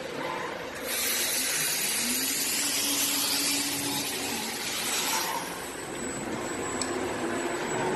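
Sheet-metal laser cutting machine running: a low motor whine that slides up and down as the machine moves, and a loud rushing hiss that starts about a second in and stops about five seconds in.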